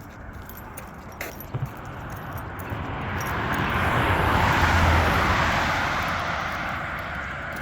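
A car driving past on the road, its tyre and engine noise swelling to a peak about halfway through and then fading away.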